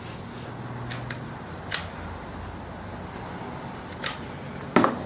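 A few sharp clicks and taps from handling a hot glue gun and a small plastic part, the loudest a quick double click near the end, over a steady low hum.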